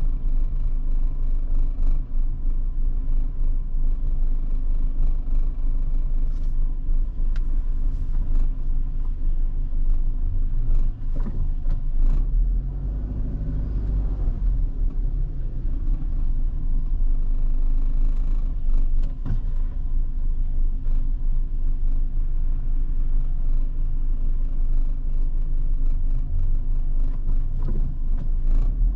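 A car driving on the road: a steady low rumble of engine and road noise, with a few short knocks around the middle.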